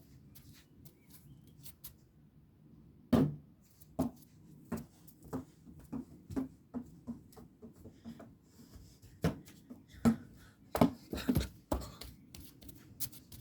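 A basketball bouncing on hard ground. A loud first impact about three seconds in is followed by bounces that come quicker and quieter as the ball settles, and a second run of bounces follows in the second half.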